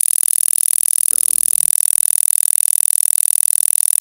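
A 40 Hz stimulation tone, pulsing rapidly and evenly without a break, the kind played for gamma-rhythm sound therapy.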